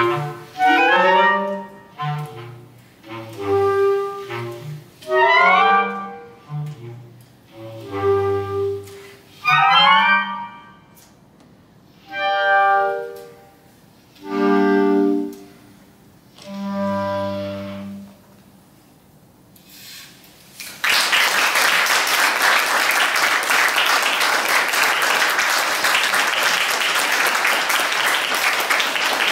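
Clarinet quartet of three clarinets and a bass clarinet playing the closing bars of a piece: quick rising figures, then three held chords. After a short pause, about two-thirds of the way in, the audience breaks into steady applause.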